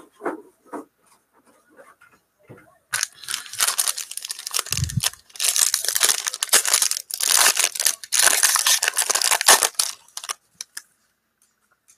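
Foil wrapper of a Topps Tier One baseball card pack being torn open and crinkled by hand. After a few faint clicks, loud tearing and crinkling starts about three seconds in, runs for about seven seconds, then stops. A dull bump comes about five seconds in.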